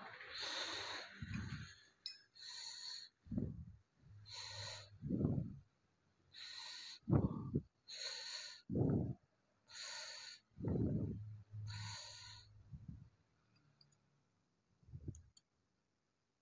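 A person's heavy breathing close to the microphone: hissy in-breaths alternating with lower, voiced out-breaths, about one full breath every two seconds, stopping shortly before the end.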